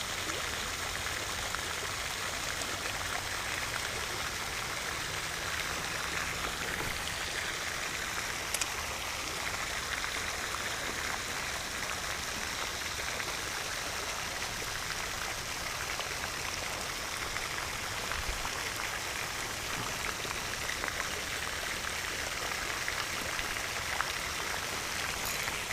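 Steady rushing of running water with a few faint ticks.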